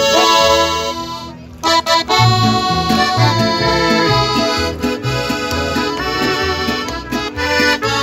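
Music with held melody notes over a rhythmic bass line, briefly dropping out about a second and a half in.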